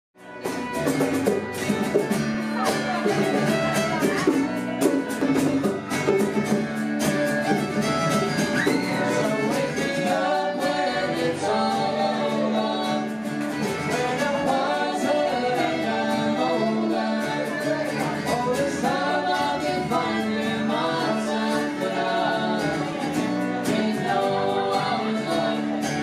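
Music: a song with a singing voice over instrumental accompaniment, fading in at the start.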